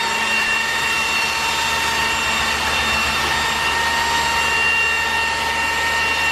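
A motor-driven machine running steadily with a constant high whine over a hiss, really noisy.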